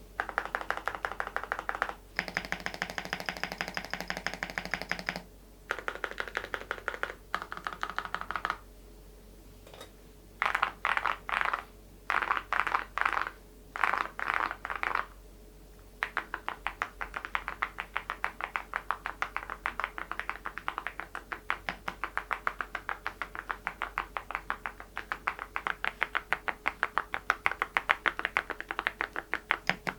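Typing on an Adelie mechanical keyboard with Cerakey ceramic keycaps, the keys giving a hard, clacky ceramic click. It starts as fast bursts of keystrokes broken by short pauses, and about halfway through settles into steady, even typing at roughly three or four strokes a second.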